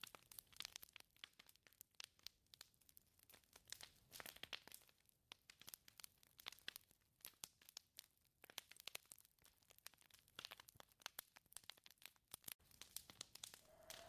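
Near silence with faint, irregular crackling and clicking, dense and uneven, in a lull between gusts of wind.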